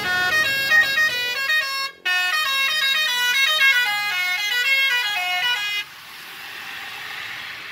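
Telolet bus horn: a set of musical air horns playing a quick tune of stepping notes, with a brief break about two seconds in. The tune stops near six seconds, leaving a rushing noise that fades away.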